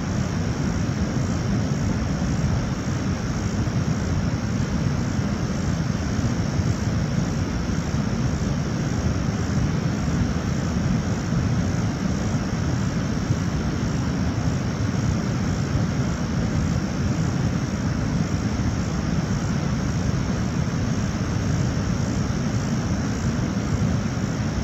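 Steady low roar of water pouring over a waterfall, with a faint steady high-pitched tone above it.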